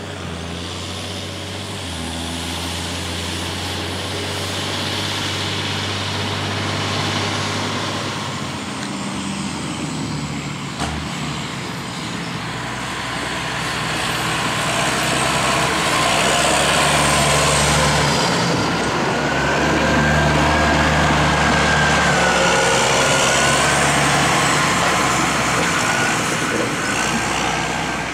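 A vehicle engine running, its pitch stepping up and down as it changes speed. It grows louder about halfway through, with a whine rising over it.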